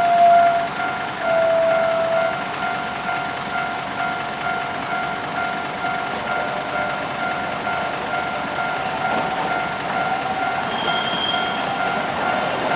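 Level-crossing warning alarm ringing in a steady repeating tone, over the running noise of a Sangi Railway Hokusei Line 270-series electric train on the 762 mm narrow-gauge line.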